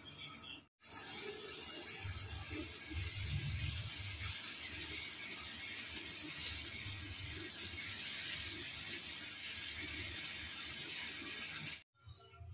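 Maggi noodles simmering in a pan of masala water: a steady bubbling hiss with crackle, broken by brief silent gaps about a second in and near the end.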